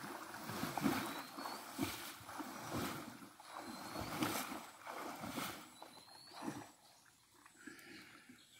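Water splashing and sloshing in irregular surges as a person swims through a shallow pond, dying away after about seven seconds as the swimmer goes still.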